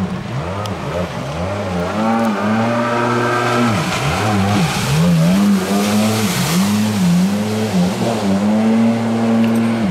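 Personal watercraft engine revving up and down over and over as the throttle is opened and closed, with a rush of water spray from about four and a half to seven seconds in.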